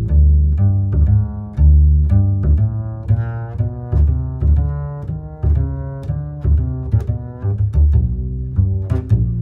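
Instrumental background music: a deep bass line under a melody of short, separate notes that change several times a second.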